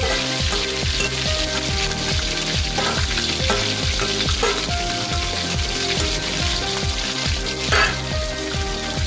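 Marinated venison sizzling steadily in hot oil in a metal wok. A metal spatula scrapes and stirs it near the end.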